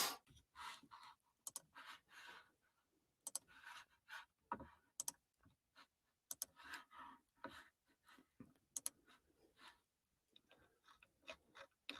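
Near silence broken by faint, irregular clicks, scattered a few to the second, with some soft blips between them.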